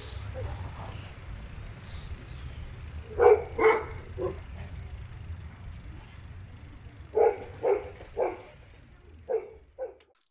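A dog barking in short, evenly spaced runs, three barks about three seconds in, three more about seven seconds in and two near the end, over a steady low outdoor rumble.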